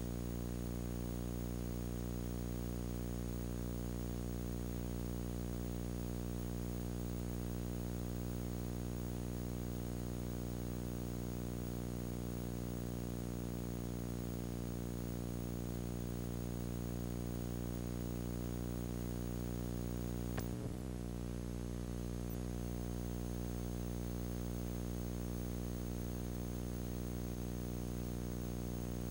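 Steady electrical hum with a buzzy stack of overtones, unchanging in pitch and level. About twenty seconds in there is a click and a brief wobble in pitch, and a smaller one two seconds later.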